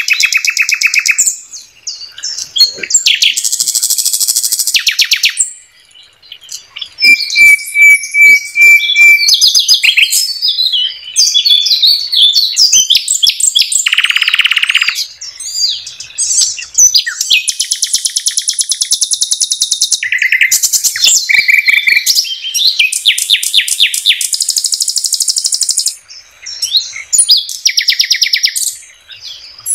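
Nightingale singing a varied song: fast trills of rapidly repeated notes and buzzy rattles alternate with clear, steady whistled notes, with short pauses between phrases.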